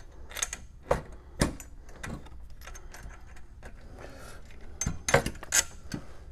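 Small metal screws clicking and clinking as they are handled and pushed through drilled holes in a pump-station mounting bracket. The taps are scattered, with a louder cluster near the end.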